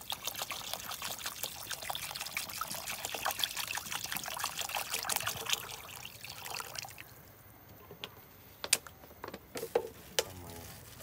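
Water trickling and splashing for about seven seconds, then a few sharp knocks near the end.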